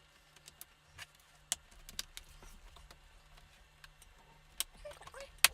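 Sharp clicks and taps of a laptop's plastic case parts being handled and pressed back together, a few louder snaps among softer ticks.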